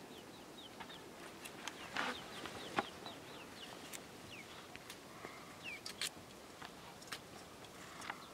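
Chickens cheeping: short falling chirps, a few a second. Sharp clicks from hand-cutting potatoes over a metal bowl break in now and then, the loudest about three seconds in.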